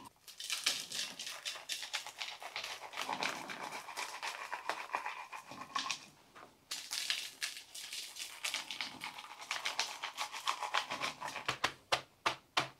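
Granular bonsai potting mix being poured and spread into a pot: a dry, gritty rustling full of small clicks, with a run of sharper clicks near the end.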